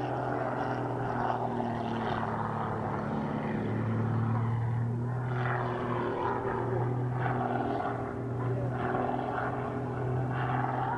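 Pitts Special aerobatic biplane's piston engine and propeller giving a steady buzzing drone whose pitch shifts a little as the plane manoeuvres.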